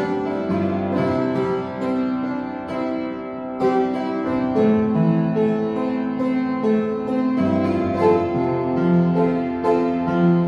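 Upright piano playing alone: the introduction to a Korean praise song, chords under a melody line.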